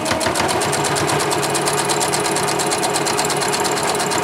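Electric domestic sewing machine stitching fabric scraps at a steady speed: a fast, even clicking of the needle with the motor's hum beneath.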